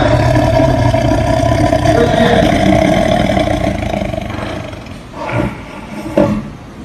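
Tiger roaring: one long, loud roar that fades out after about four and a half seconds, then two shorter calls about a second apart.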